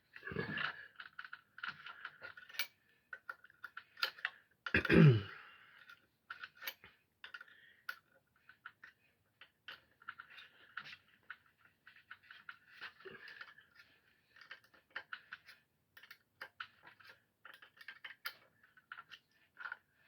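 Irregular small metallic clicks, taps and rattles of hand tools working on a planer's cutter head, loosening the set screws of the bar that clamps a blade. About five seconds in there is a louder scrape that falls in pitch.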